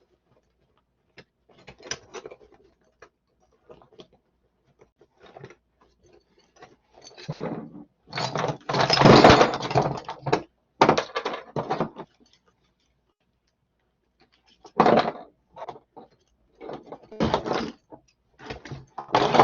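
Hand tools and a soft tool bag being handled: irregular clinks, rustles and clatter with pauses, the loudest stretch lasting a couple of seconds around the middle.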